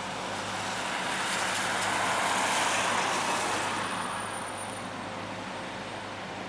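Road traffic on a wet street: one vehicle's tyre hiss and engine swell up and fade away as it passes, over a steady low engine hum.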